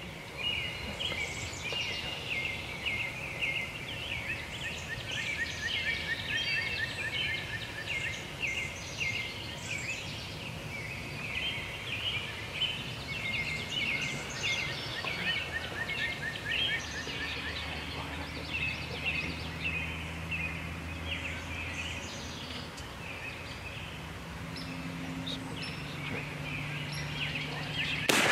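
Spring woodland songbirds chirping and singing throughout, with a fast repeated trill twice, and a faint low hum in the second half. Right at the end a single shotgun blast goes off at a turkey.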